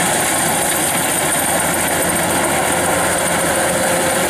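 Kubota rice combine harvester running close by, its engine and machinery making a loud, steady mechanical noise that does not change.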